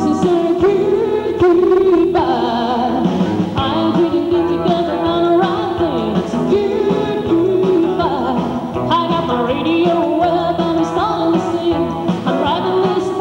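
Live country band playing, with a man singing lead over acoustic guitar, electric bass, pedal steel guitar and drums.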